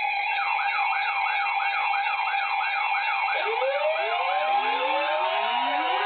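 Electronic emergency sirens: a rapid yelp sweeping up and down about three to four times a second, joined about three seconds in by slower, lower rising and falling wails, over steady sustained tones.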